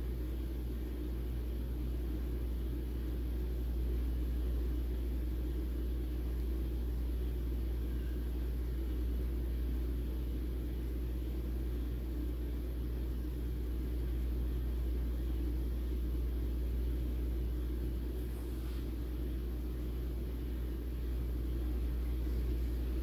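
Steady low rumble, even and unbroken, with no distinct events.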